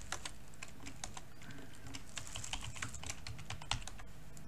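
Typing on a computer keyboard: a quick, uneven run of keystrokes that stops shortly before the end.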